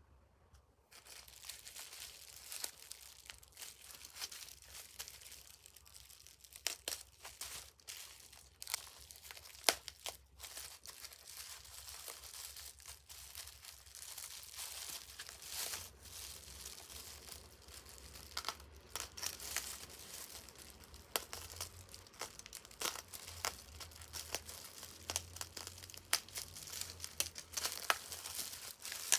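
Packaging being handled and unwrapped: continuous crinkling with many sharp crackles and small tearing sounds, close to the microphone.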